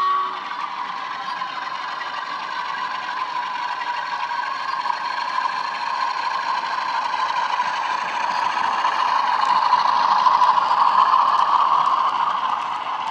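Bachmann OO-gauge Class 47 model diesel with factory-fitted DCC sound: its small onboard speaker plays the Class 47 engine sound as it runs, mixed with the rattle of its loaded wagons' wheels on the track. The sound grows louder about two-thirds of the way through as the train passes close by.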